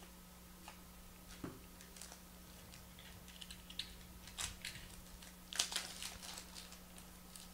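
Foil wrapper of a Panini Contenders football card pack being torn open and crinkled: faint scattered crackles that build to the loudest rustle about five and a half seconds in.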